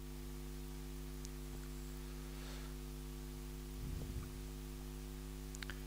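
Quiet room tone with a steady low electrical hum, and a faint scratch of a marker drawing a line on a whiteboard about halfway through.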